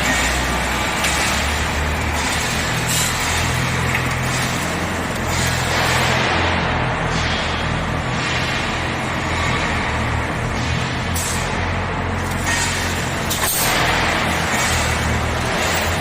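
Automatic wire mesh panel welding machine running: a steady low electrical hum under a constant mechanical din, with hissing, clattering surges coming and going every second or two.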